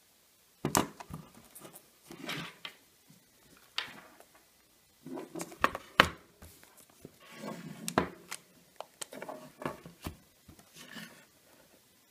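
Handling noise from an Apple USB SuperDrive's aluminium case being turned and shifted on a wooden desk: irregular scrapes and sharp knocks, the loudest knock about six seconds in.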